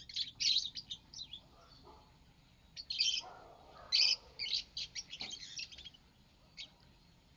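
Pet lovebirds chirping: quick, high-pitched chirps in bursts, loudest about three and four seconds in, then mostly quiet near the end.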